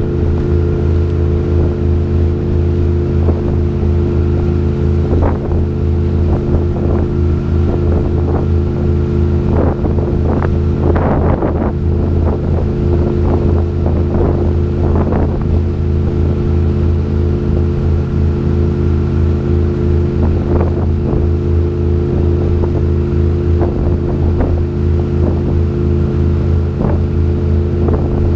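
Tour boat's engine running at a steady cruise, a constant low drone. Irregular rushing wind and water noise comes and goes over it, strongest around the middle.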